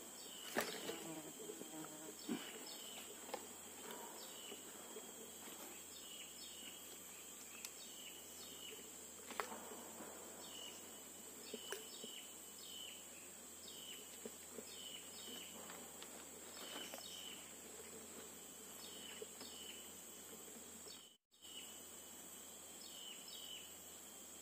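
Tropical forest insects droning at a steady high pitch, with short high chirps repeating every second or so. A few faint knocks, and the sound cuts out for a moment near the end.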